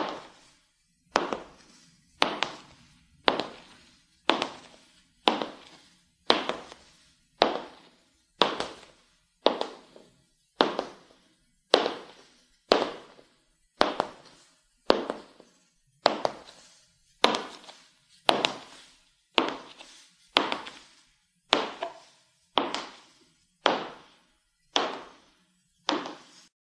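High-heeled shoes clicking on a hard floor in slow, even steps, about one a second, each click ringing briefly in the room.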